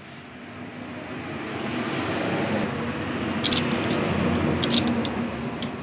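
A passing motor vehicle's engine noise swells over the first couple of seconds and holds. Two sharp metallic clinks of a spanner fitting a motorcycle spark plug come about three and a half and nearly five seconds in.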